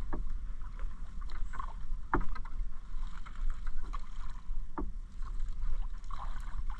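A wet gill net being hauled hand over hand into a small outrigger boat: water splashing and dripping off the mesh, with three sharp knocks against the boat about two seconds apart.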